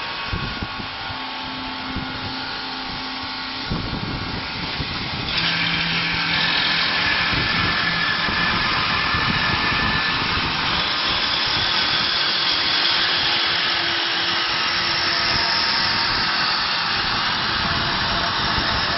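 High-speed wood lathe running and cutting wood, a steady machine noise with a hiss. About five seconds in it gets louder and brighter.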